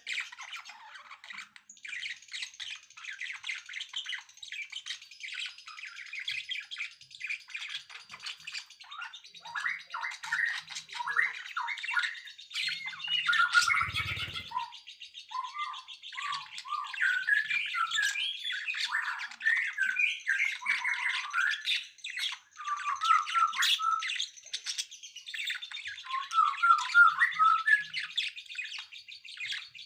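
Songbirds chirping and twittering in rapid, overlapping calls and short trills, with a brief dull thump about halfway through.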